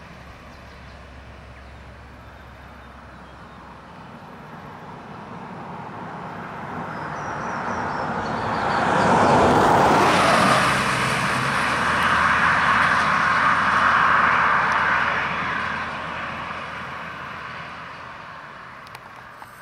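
A road vehicle driving past: its engine and tyre noise swells over several seconds, is loudest around the middle, and fades away.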